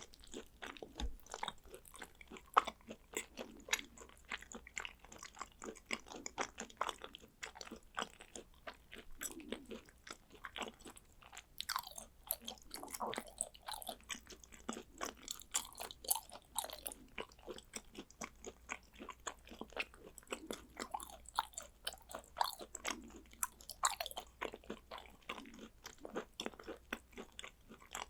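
Close-miked chewing of soft raw food, with many quick wet clicks and smacks from the mouth, several a second and uneven in strength.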